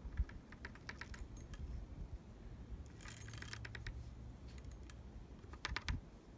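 Small metallic clicks and rattles in three short spells: steel BBs being poured from a small bottle down the barrel of a muzzleloading black powder shotgun.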